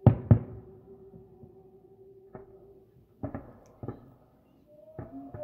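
Distant aerial firework shells bursting: about eight sharp booms with echoing tails, the loudest two close together at the very start, the rest scattered singly and in pairs.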